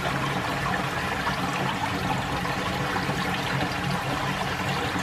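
Spring water rushing and splashing out of a rock crevice, heard close up from inside the opening: a steady, even rush.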